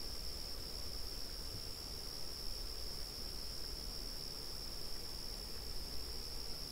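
Crickets trilling in a steady, unbroken, high-pitched chorus.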